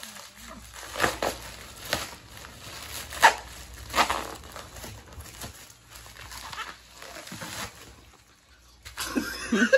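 Plastic mailer and paper postal envelope crinkling and rustling as a package is pulled open by hand, with several sharp crackles in the first four seconds and softer rustling after.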